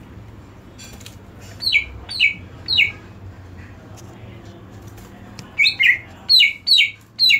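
Cucak ijo (green leafbird) calling: short, sharp notes that each drop in pitch, three in quick succession about two seconds in and five more near the end.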